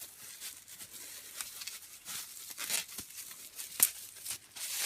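Packaging crinkling and rustling as CD albums are handled and sorted, with a couple of sharp clicks about three seconds in and a louder rustle near the end.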